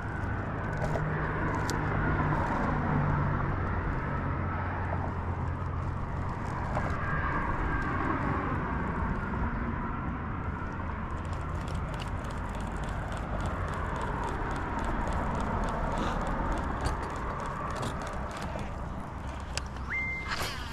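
Vehicles crossing a road bridge, their tyre noise swelling and fading as each one passes, over a low steady hum.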